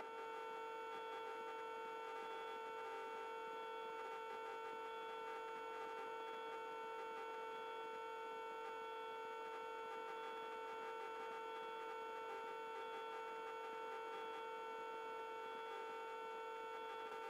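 A steady mid-pitched electrical hum with higher overtones on the helicopter's intercom audio feed, unchanging throughout.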